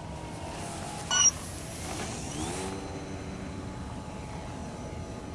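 Radio-controlled foam L-19 Bird Dog model airplane's motor and propeller running low on a slow approach, with one brief sharp sound about a second in. From about two seconds in the motor's pitch rises and then holds steady as the throttle comes up.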